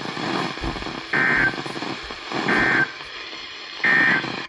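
NOAA Weather Radio receiver playing the Emergency Alert System end-of-message data signal that closes the weekly test: three short, shrill, buzzy digital bursts about 1.3 seconds apart over radio static hiss. The audio cuts off suddenly just after the third burst.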